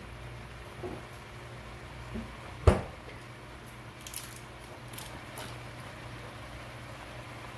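Shrimp cooking in a steel wok over a steady low hum; one sharp knock about three seconds in, then a few small crackles and pops from the pan.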